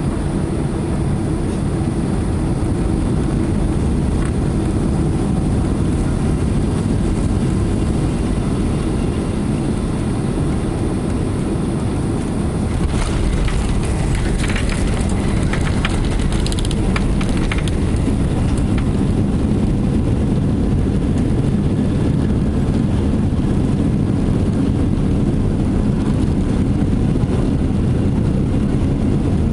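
Boeing 767 cabin noise during landing, a steady loud rumble of engines and airflow. About thirteen seconds in, a few seconds of rattling and clatter come in as the wheels touch down and the wing spoilers deploy, and the runway rollout rumble follows.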